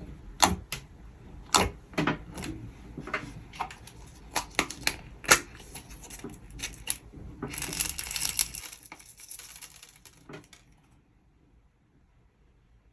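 Butter slime squished and poked by hand: a run of sharp sticky clicks and pops, then a denser crackling stretch about eight seconds in, dying away after about ten seconds.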